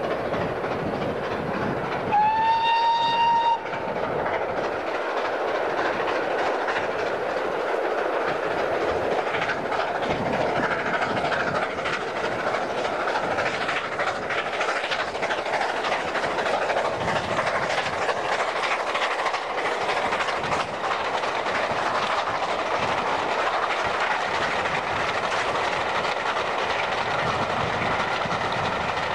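A steam locomotive hauling a train up a bank sounds its whistle once, about two seconds in, for about a second and a half; the note rises slightly as it opens. After it comes the steady rush and clatter of the passing train's wheels on the rails.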